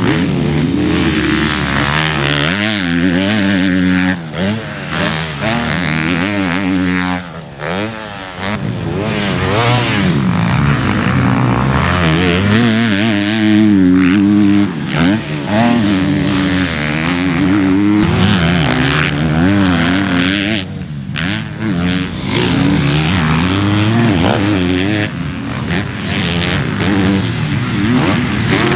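Motocross bike engines revving hard, their pitch rising and falling again and again as the throttle is opened and shut. The sound dips briefly about 4 and 8 seconds in.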